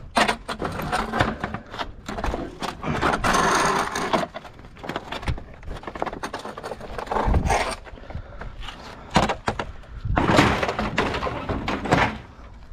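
Scrap and debris being rummaged through and pulled out of a dumpster: irregular clattering, knocks and scraping in bursts, with the heaviest spells at the start, about seven seconds in and near the end.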